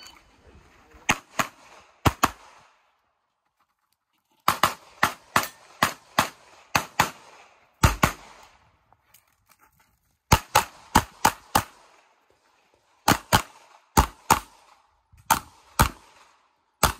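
Pistol shots fired rapidly, many in quick pairs, in strings of about thirty shots broken by short pauses, as a competitor runs a practical-pistol stage.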